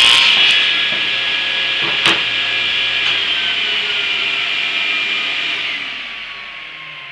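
Table saw finishing a rip cut through pine, then running free, with a single sharp knock about two seconds in. From about three seconds in the blade spins down after being switched off, its whine falling in pitch and fading.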